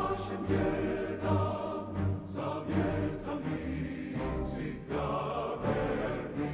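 Background music: a choir-like chant over a steady low beat with percussive hits.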